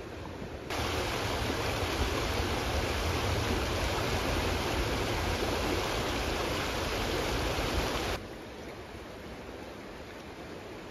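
Fast-flowing river water rushing and churning over rocks in white-water rapids, a loud, even rush with a low rumble. It cuts in just under a second in and cuts off suddenly about eight seconds in.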